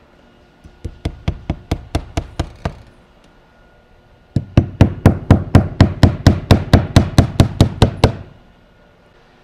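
Hammer driving nails into the nail slots of a horizontal siding panel: a quick run of about ten lighter blows, a pause, then a louder run of about twenty blows, about five a second, that stops about eight seconds in.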